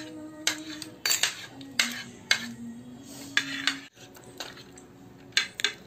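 Steel spoon clinking and scraping against a plate while chana is scooped up and eaten, in irregular sharp clinks about once a second.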